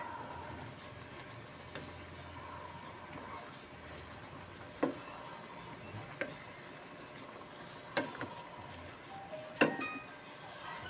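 A wooden spatula stirs vegetables in a pan of simmering liquid, over a steady low cooking hiss. The spatula knocks sharply against the pan four times, the loudest near the end.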